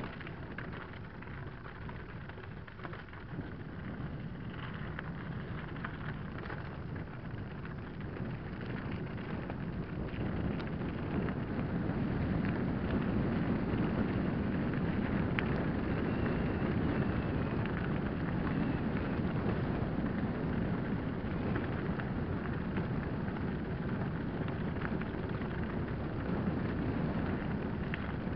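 Mountain bike rolling fast down a loose gravel and stone track: tyres crunching and rattling over the stones with wind rushing over the microphone, a steady noise that grows louder about ten seconds in.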